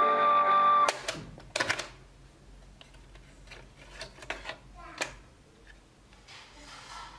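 Music stops abruptly about a second in as the Sony cassette recorder's stop/eject key is pressed. The eject mechanism clacks and the cassette door pops open, followed by light plastic clicks and rattles as the clear modified cassette is taken out and handled.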